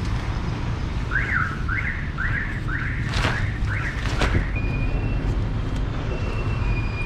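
A vehicle alarm siren sounding: a run of rising whoops, about two a second, then a steady high tone that steps down near the end. Two short rustles of tent nylon being shaken come in the middle, over a steady low rumble.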